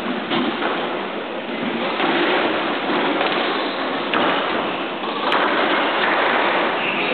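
Squash rally: a few sharp cracks of the ball off racket and walls, a second or two apart, over steady background noise.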